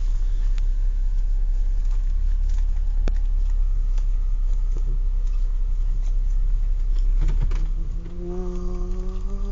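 Steady low rumble of a car engine idling. About eight seconds in, a person starts humming a held note.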